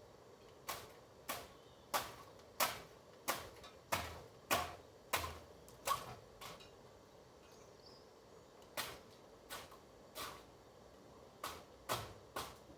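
Repeated sharp strokes of a hand tool cutting into tree wood, about one and a half strokes a second, in three runs with short pauses between: about ten, then three, then three or four.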